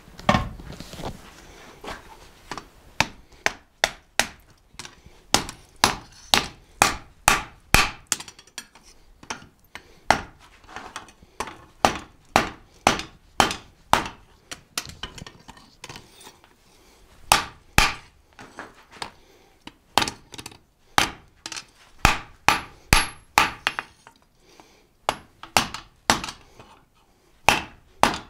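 Hand hammer striking red-hot leaf-spring steel on an anvil, a steady run of blows about two a second, with a couple of short pauses between runs.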